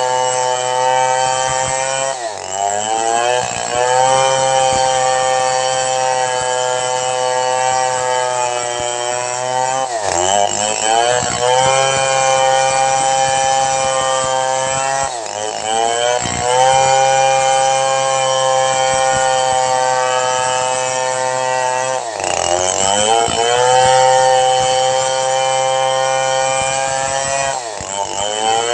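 Chainsaw engine running at high revs while ripping lengthwise through a log. Its pitch drops sharply and climbs back five times, every five to eight seconds, as the chain takes up load in the wood.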